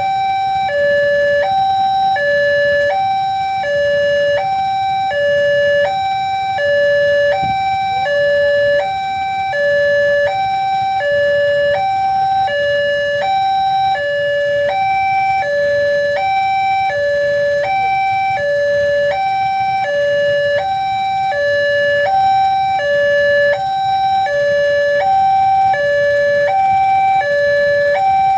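Electronic warning alarm of a railway level crossing sounding its two-tone signal, a high and a low tone alternating evenly at about one pair a second, warning that a train is approaching. A low rumble runs underneath.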